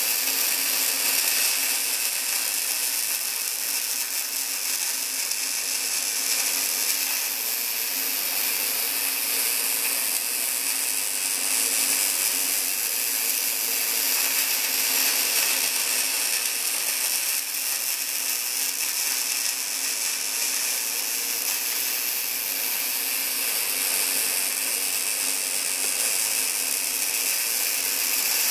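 Short-circuit MIG welding arc of a Boa308i bore welder (.035 wire at 17.6 V), burning inside a small bore as a steady, dense crackle with a steady low hum beneath it.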